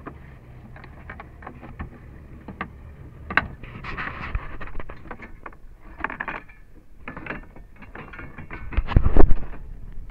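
Anchor chain being handled at a boat's bow: scattered metallic clicks and rattles, with a loud clank about nine seconds in.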